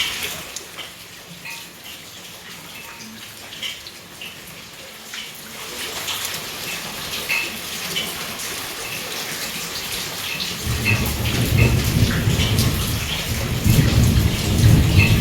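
Rain falling steadily, with scattered drop sounds. About two-thirds of the way through, a loud low rumble sets in and grows louder.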